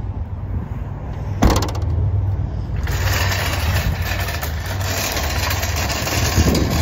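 Shopping cart wheels rolling and rattling over asphalt, a dense clattering that sets in about three seconds in over a steady low rumble, with a single thump about a second and a half in.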